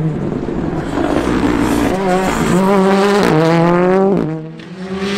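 Ford Fiesta Rally2 car's turbocharged four-cylinder engine at full throttle as the car passes at speed, pitch climbing through the revs with an upshift a little after three seconds in, then the engine note drops away after about four seconds.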